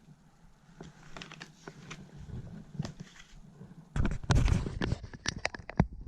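Small clicks and taps of hands working on a laptop's plastic and metal parts, getting louder and busier with a cluster of sharp clicks and knocks in the second half.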